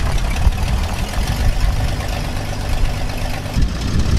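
Old pickup truck's engine running, a steady, mostly low-pitched sound with an uneven level.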